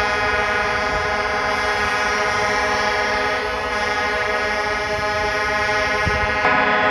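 Air horns of many tow trucks sounding together in one long, steady, held chord of several pitches.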